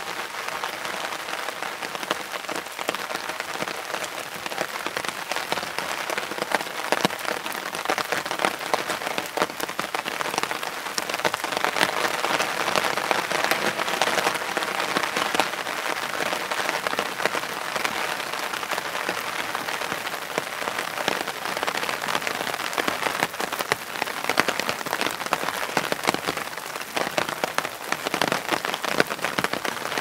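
Steady rain falling, with many close individual drops ticking on a clear plastic umbrella held just above the recorder.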